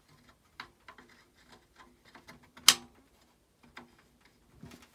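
Light metallic clicks and taps as a brass fire-control key is handled against an alcohol stove's metal body, with one sharp, louder click a little past halfway.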